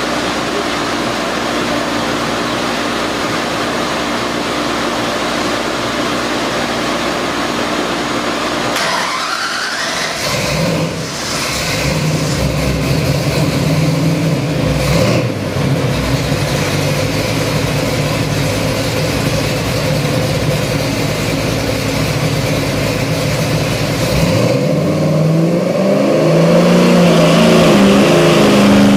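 Ford 302 small-block V8 crate engine, carbureted and with a hydraulic roller cam, running on an engine dyno. It runs steadily for the first several seconds, revs up about nine seconds in and holds at a higher speed, then climbs steadily near the end as the dyno loads it through a pull past 3000 rpm.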